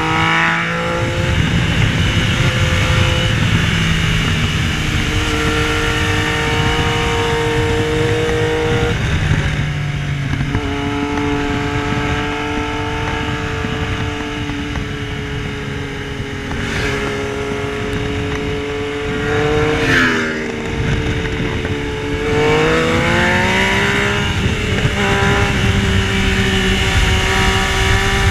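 Yamaha Tracer 900's three-cylinder engine running hard on track, holding a steady pitch for long stretches with a few shifts in revs. About twenty seconds in the pitch drops, then climbs again as it picks up.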